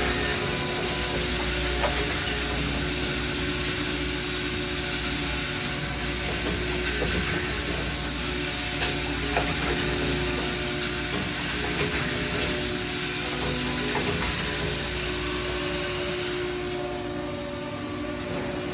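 Automatic nut-pressing machine running: a steady hiss with scattered clicks and ticks from its feeding and pressing mechanism. The hiss eases off near the end.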